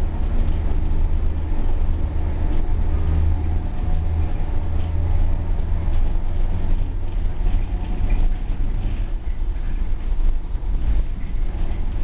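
Cabin of an old FVV tram under way: a steady low rumble of the running car, with a low hum that fades about halfway through.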